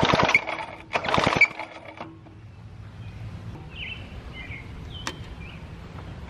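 1950s David Bradley chainsaw being pull-started twice in quick succession, the engine cranking over on its recoil cord without firing because the magneto gives no spark. Afterwards a few bird chirps and a single sharp click.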